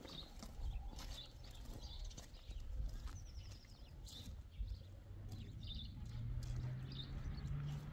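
Footsteps on a concrete lane, a series of short scuffs and clicks, with small birds chirping now and then. A low steady hum comes in about five seconds in and rises slightly in pitch toward the end.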